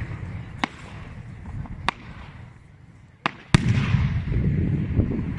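Fireworks display: sharp single shell bursts at intervals, then a loud bang about three and a half seconds in, followed by a long low rumble with crackling.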